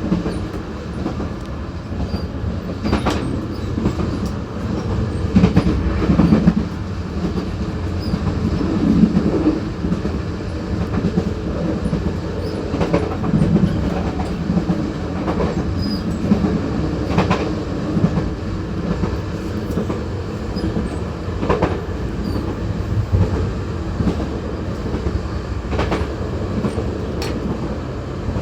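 Rail cars running, heard at the gangway connection between two coaches: a continuous low rumble, broken every few seconds by a sharp knock or clank from the coupling and wheels over rail joints.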